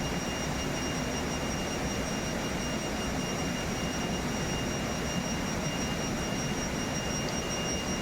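Steady rushing of river water, an even roar that does not change, with a thin steady high whine over it.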